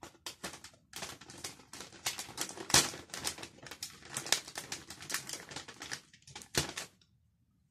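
Brown paper takeout bag crinkling and rustling in quick, irregular crackles as its folded top is pulled open, stopping about a second before the end.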